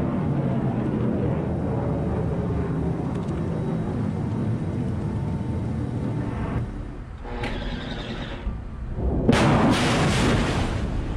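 Steady low rumbling noise, then about nine seconds in a sudden loud roar as a missile's rocket motor fires out of a ship's MK-41 vertical launch system.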